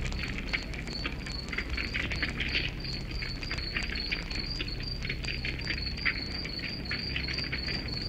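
Wood fire crackling with irregular snaps and pops, while a cricket chirps steadily behind it in an even high-pitched pulse of about five chirps a second.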